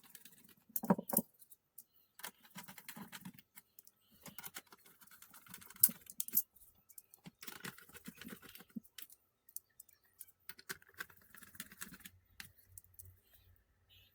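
Plastic keys and parts of an HP SK-2502C membrane keyboard clicking and clattering in irregular bursts, with sharper knocks about a second in and again near six seconds.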